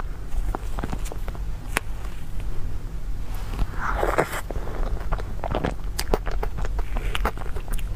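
Close-up mouth sounds of eating chocolate cream cake: wet clicks and smacks of chewing, with a louder breathy rush about four seconds in as a large forkful goes into the mouth, over a steady low hum.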